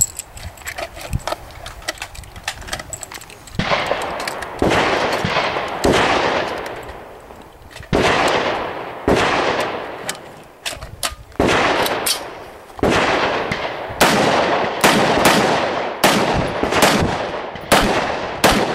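A series of single gunshots, roughly one a second, each dying away over about a second. They begin about three and a half seconds in, after a few faint clicks.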